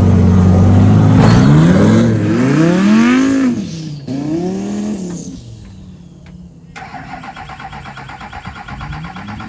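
Monster truck engine running, revved up and down three or four times, then dropping back to a low idle. About seven seconds in, a higher, buzzier running sound takes over abruptly.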